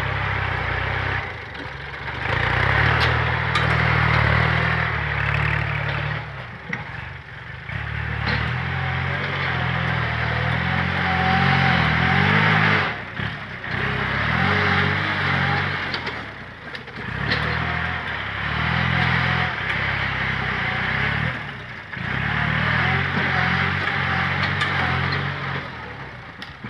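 Kubota tractor's diesel engine working under load as it pushes and grades soil with a front blade, its note rising and falling in repeated cycles every few seconds, with occasional clatter from the blade and implements.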